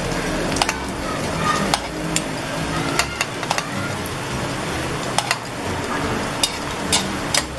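Mackerel fish balls frying in oil in a metal wok, a steady sizzle, with sharp, irregular clinks of a metal spoon against the wok as the balls are turned over.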